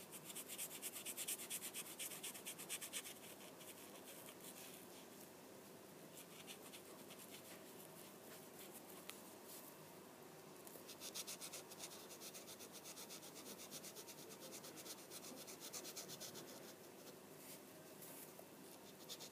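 Marker tip rubbing on paper in fast back-and-forth colouring strokes, faint, in two busier spells: at the start and again from about halfway until near the end.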